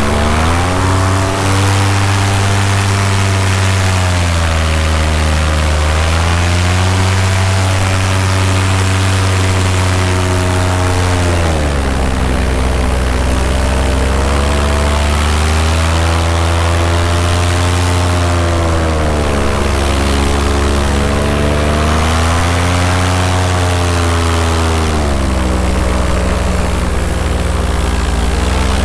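Paramotor engine and propeller running in flight, its pitch sagging and rising again several times as the throttle is eased back and opened up.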